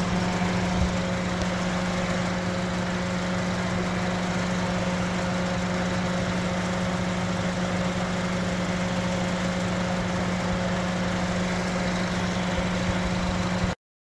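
2006 Honda Civic's engine idling steadily under the open hood, a constant hum with no change in pitch; it cuts off abruptly right at the end.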